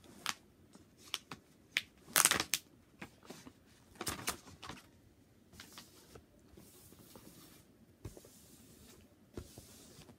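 Plastic packaging from a diamond painting kit being handled: scattered sharp crinkles and clicks, loudest about two seconds in, then a softer rustle.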